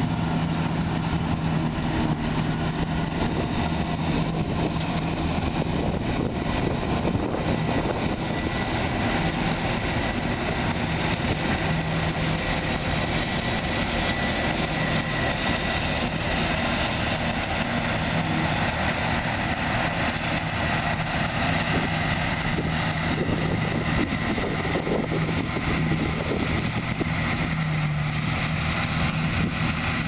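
John Deere 7700 Turbo combine's turbocharged diesel engine running steadily under load while harvesting canola, with the header and threshing machinery turning. A faint steady high whine runs over the engine's drone.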